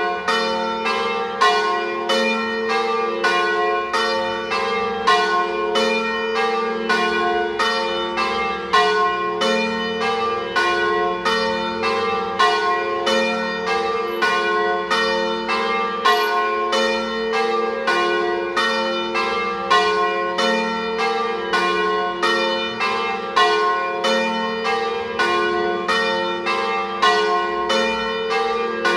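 Peal of the parish church's bronze tower bells, cast by Cavadini of Verona in 1926 with one by De Poli in 2022, swung together in Trevigiana style. Several bells of different pitch strike one after another in a steady, overlapping stream, about two to three strokes a second.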